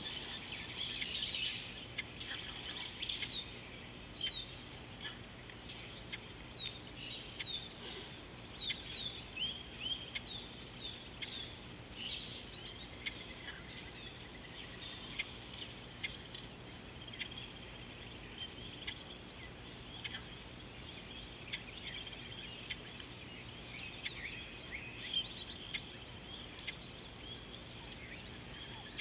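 Wild birds calling at an African watering hole: a busy chorus of short, high chirps and quick downward-flicking notes, many overlapping, busiest in the first few seconds.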